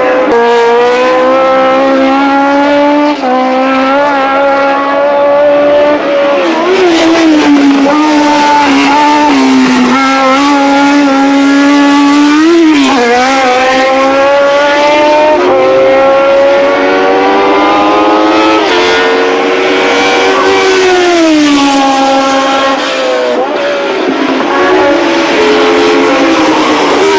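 1970s Formula One car engines at high revs. The pitch drops and climbs again several times as the cars lap, with a longer fall a little past the middle.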